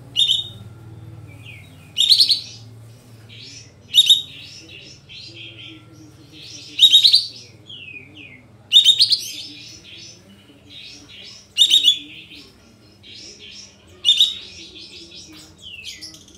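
Sooty-headed bulbul (kapas tembak) singing: seven loud, sharp high phrases about every two to three seconds, with softer chattering notes between them.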